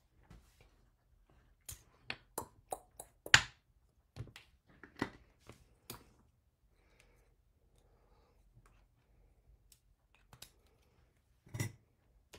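Clear acrylic stamp blocks clicking and knocking against a tabletop as they are handled: a quick run of sharp clicks, the loudest about three and a half seconds in, then two more near the end.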